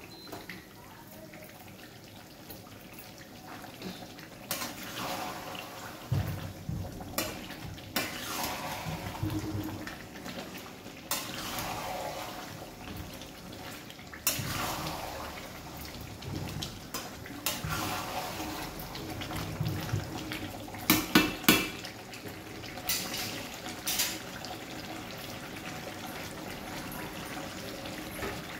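Chicken gravy bubbling and sizzling in a kadai while a metal spatula stirs and scrapes the pan, with a quick cluster of three sharp metal knocks about two-thirds of the way in.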